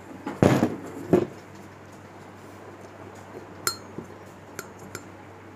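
70cc motorcycle cylinder head being handled on a wooden workbench: two heavy metal knocks about half a second and a second in, then a few light metallic clicks with a short ring near the end.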